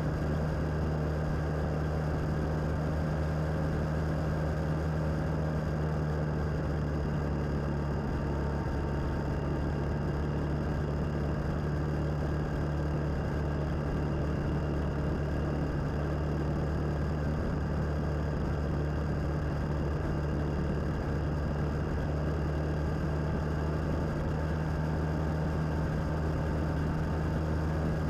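Suzuki DL650 motorcycle's V-twin engine running at a steady cruising speed, a constant low drone with an even rushing noise over it and no changes in pitch.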